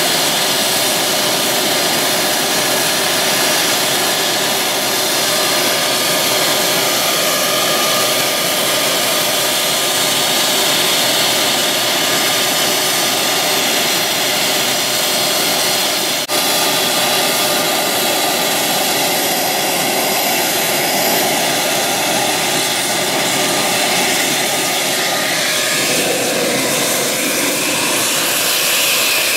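F-16C Fighting Falcon's General Electric F110 turbofan running at ground idle: a steady rushing roar with a high turbine whine. The whine's pitch shifts upward near the end as the jet moves off.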